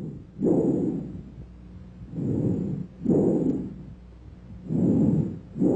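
Bronchial breath sounds as heard through a stethoscope: breath noise in pairs, an inspiration and then an expiration with a short silent gap between them, repeating about every two and a half seconds. This is the kind of breathing normally heard over the manubrium.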